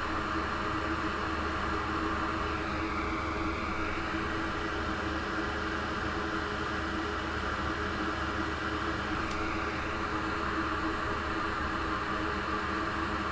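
Steady whir and hiss of a small fan running, with a constant low hum underneath.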